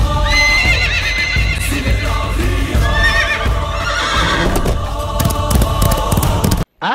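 Horse whinnying over background music. The sound cuts off abruptly near the end.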